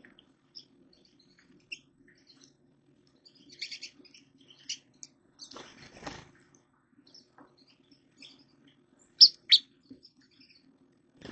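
Small birds chirping in short, high, scattered notes, the two loudest about nine seconds in, with a brief rustle around six seconds.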